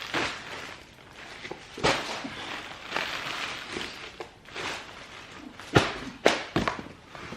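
Handling noises while unpacking clothing inventory: packaging rustling, with several sharp knocks, three of them close together near the end.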